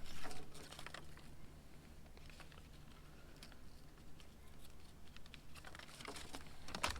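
Scattered light clicks and taps over a steady low hum, with a sharper click near the end.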